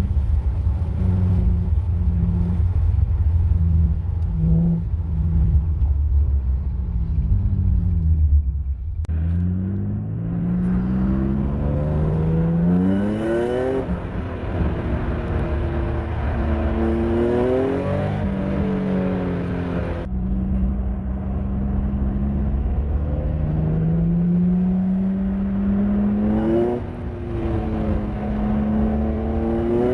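Infiniti G35's 3.5-litre V6 running through ISR resonated test pipes: a steady drone while cruising, then after an abrupt break about nine seconds in, repeated hard pulls with the engine pitch rising and dropping back at each gear change.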